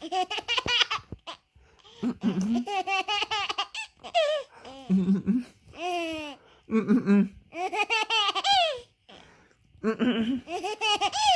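Infant laughing with delight in repeated bouts, each set off by an adult's short, low fake cough just before it.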